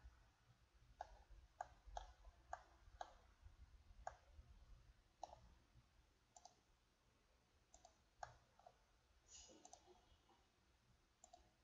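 Faint computer mouse clicks, a dozen or so at uneven intervals, as points on the screen are picked one by one.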